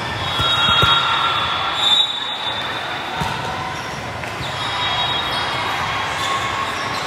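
Busy indoor volleyball hall during a rally: high rubber-sole squeaks on the sport-court floor and a few sharp thuds of volleyballs being hit, over the hall's steady echoing background noise.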